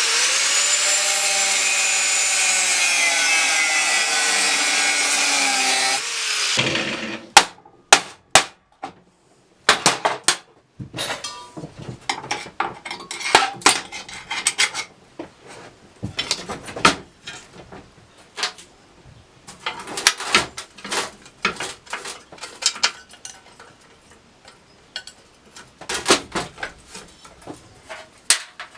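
A power tool runs steadily under load for about six seconds, then stops. It is followed by a long series of irregular sharp knocks and clicks as parts are handled and tapped.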